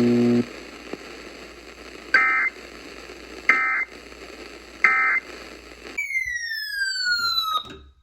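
EAS SAME end-of-message code: three short warbling data bursts about a second and a half apart, over faint radio hiss, closing the tornado warning broadcast. A steady droning tone cuts off about half a second in, and near the end a falling tone sweeps down for under two seconds and stops abruptly.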